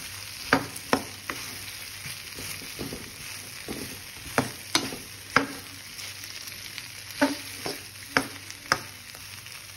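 Cut okra and onions frying in oil in a pan while being stirred: a steady light sizzle, with about ten sharp clacks of the stirring utensil striking the pan in loose clusters.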